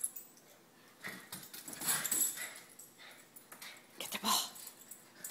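Small dogs playing over a tennis ball, giving a few short dog vocal sounds. These come in clusters about a second in and again around four seconds.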